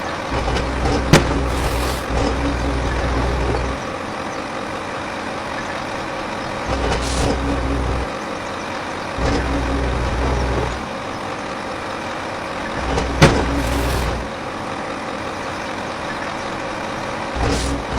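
A motor hum that runs in stretches of one to three seconds and stops between them, five times over, with a couple of sharp clicks.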